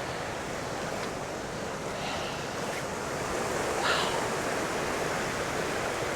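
Steady rush of a small waterfall and creek, with a brief faint noise about four seconds in.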